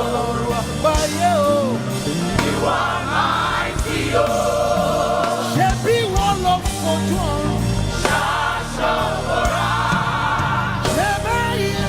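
Live gospel worship music: a choir or congregation holding sung chords over a band, with a solo voice gliding between notes above them.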